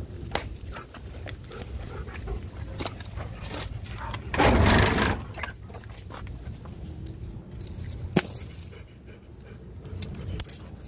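Light metal jingling and clinking from dog-walking tags and leash hardware, over a steady low rumble. A louder, noisy burst lasts about a second, about four seconds in, and there is a single sharp click a little after eight seconds.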